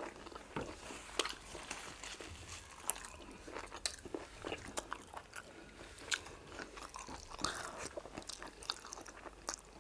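People chewing and smacking their lips while eating fufu and egusi soup, close to the microphone: irregular short, wet mouth clicks with no steady rhythm.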